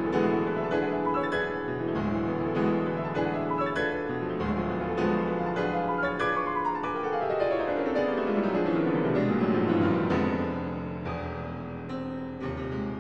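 Background piano music; about halfway through, a quick run of notes falls steadily in pitch.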